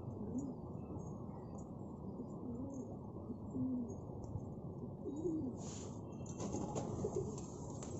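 Domestic pigeons cooing softly, several short low calls spread through, over a steady low background noise. There is a brief rustle about six seconds in.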